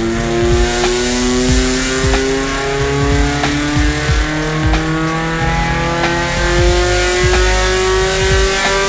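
Nissan race car's engine pulling under load on a chassis dyno during a base run, its pitch climbing slowly and evenly as revs rise from about 3,300 to 5,600 rpm. A light tick recurs about once a second underneath.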